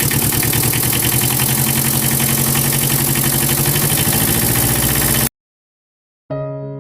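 A motor running steadily with a fast, even chugging pulse, cutting off suddenly about five seconds in; piano music starts near the end.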